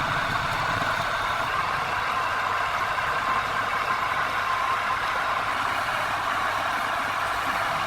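Woodturning lathe running steadily, with a constant whirring hiss.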